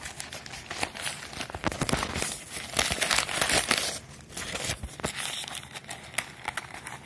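Crinkling and rustling as a plastic-wrapped packet is pushed by hand into a zippered nylon MOLLE pouch, with scrapes and clicks from handling the fabric. The crinkling is densest and loudest about three seconds in, then settles into lighter rustles and clicks.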